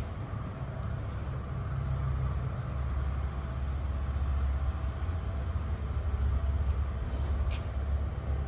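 Mini excavator's engine idling with a steady low rumble, with a couple of faint clicks near the end.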